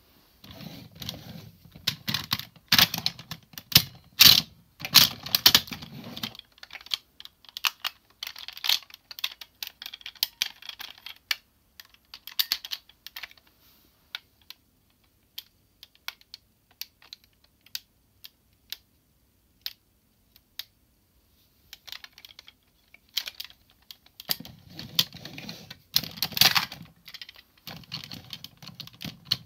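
Hard plastic parts of a DX Tousai Zyuoh combining robot toy being handled and snapped together: rapid clicks and rattles, busy for the first six seconds and again over the last five, with only a few scattered clicks in between.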